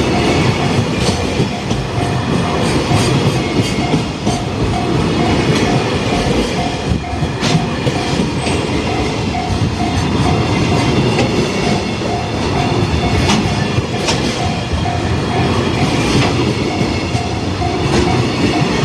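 Freight train wagons rumbling past with a steady clickety-clack of wheels over rail joints and a little wheel squeal. Over it, a level-crossing warning bell dings steadily about twice a second.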